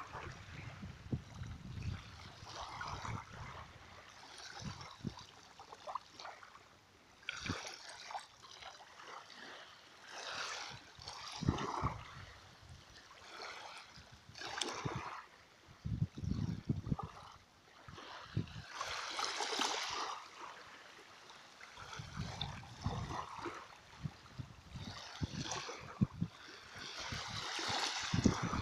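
Sea water lapping and splashing in irregular surges, a second or two apiece.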